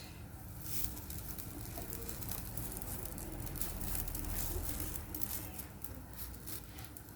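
Stuffed dough pastries cooking in a hot ceramic frying pan greased with a little butter: a faint, steady crackling sizzle with scattered small ticks.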